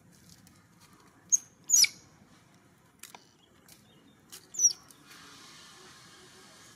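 Newborn macaque clinging to its mother giving three short, high-pitched squeaks, the second and third falling in pitch, with a few faint clicks between them.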